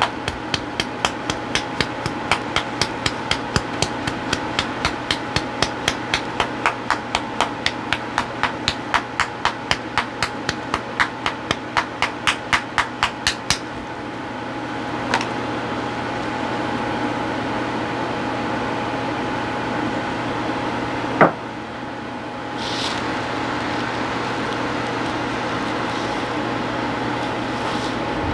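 A foundation bottle being shaken hard, giving a quick, even clicking knock about three to four times a second that stops about halfway through. A single sharp tap follows later, over a steady background hum.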